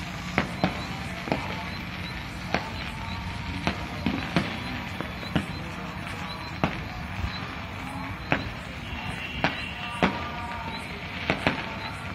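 Fireworks going off: sharp bangs at irregular intervals, roughly one a second, some in quick pairs, over a steady background rumble.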